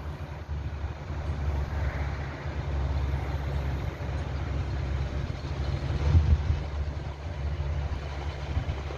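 Wind buffeting the microphone: a steady low rumble with a stronger gust about six seconds in, over a faint even hiss.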